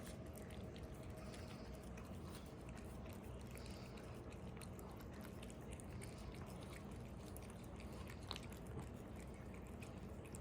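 Cats chewing treats: faint, irregular small crunching clicks over a steady quiet room background.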